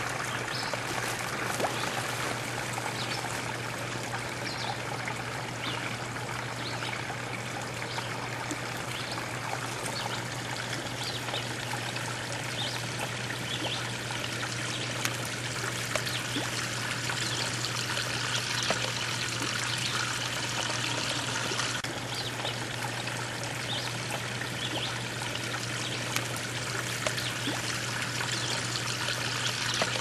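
Water trickling and splashing steadily from a small filtered pond, with many small drip-like ticks and a low steady hum underneath.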